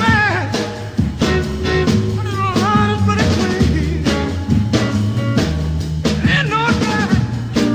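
Male singer with a 1960s rhythm-and-blues band: a sung vocal line with gliding, bent notes over a steady drum beat.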